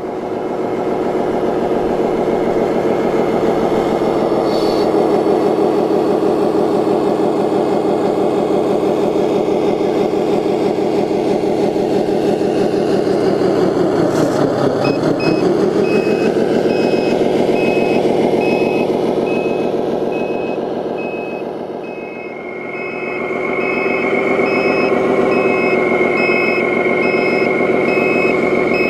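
RC Scania 8x8 dump truck's electronic sound unit playing a steady diesel engine sound. About halfway through the engine note dips and rises again, and a pulsing reversing beeper starts and runs to the end as the truck backs up. A steady high whine joins near the end.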